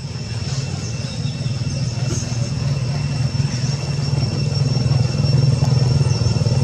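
A steady low engine rumble, like a motor idling, growing slightly louder over the seconds. Two thin high steady tones and a few faint chirps sit above it.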